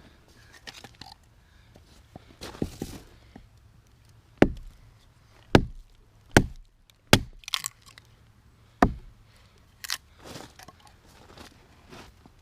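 Axe chopping wood: five sharp strikes over about four seconds, with smaller knocks and scuffs before and after.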